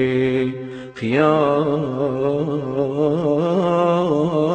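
A man's voice chanting Hawrami religious verse in a slow, drawn-out style, holding long ornamented notes. It breaks off briefly about a second in, then resumes on a new held phrase.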